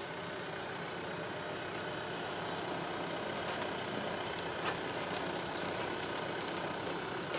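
A TYM tractor's diesel engine running steadily.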